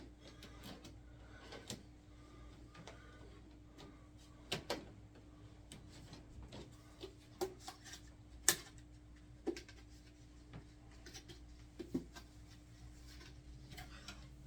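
Scattered light clicks and knocks of things being handled, the sharpest about eight and a half seconds in, over a steady low hum.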